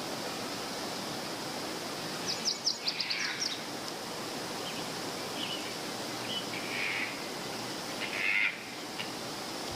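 Steady outdoor background hiss with animal calls: about two seconds in, a quick run of high, falling chirps, then a few short, fainter calls spaced through the rest.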